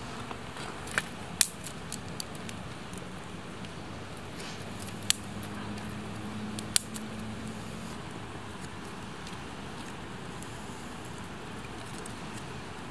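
Small, freshly lit campfire of thin twigs and dry grass burning, with scattered sharp crackles and pops; the loudest comes about a second and a half in, with others near five and seven seconds.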